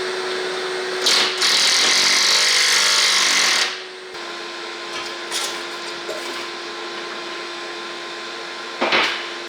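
A power tool running with a steady hum and hiss. It gets much louder about a second in for nearly three seconds, then runs on more quietly, with a short loud burst near the end.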